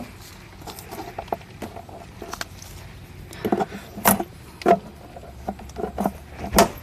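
Irregular clicks and knocks from hands and tools handling the portable refrigerator's plastic compartment, with a cluster of sharper knocks a few seconds in and another near the end.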